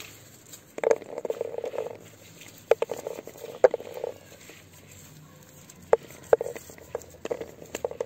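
Small white myrtle berries dropping by the handful into a plastic bowl: about four short bursts of pattering clicks, a second or two apart.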